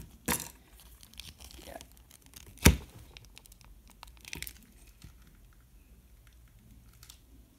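Hands handling a plastic action figure, rustling and clicking its soft translucent robe piece as it is fitted back on. One sharp knock about two and a half seconds in is the loudest sound; after that the handling turns to faint small clicks.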